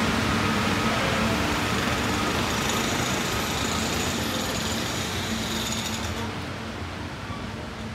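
Vehicle assembly plant floor ambience: a steady hiss of machinery and ventilation with faint steady hums and whines. The high hiss drops away about six seconds in, leaving a duller rumble.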